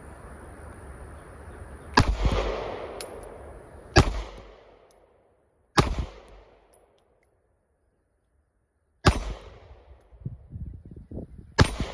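Five single pistol shots from a Springfield Hellcat 9mm with a Tyrant CNC aftermarket trigger, fired at uneven intervals of about two to three seconds. Each crack is followed by a short fading echo.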